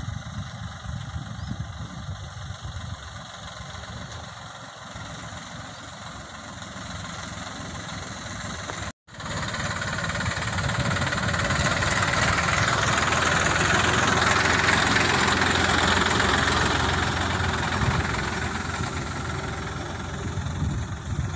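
New Holland 3230 tractor's diesel engine running as it pulls a trailer heaped with paddy straw. It is faint and low at first, then after a sudden break it is close and louder, swelling as the tractor goes by about two thirds of the way in and easing off near the end.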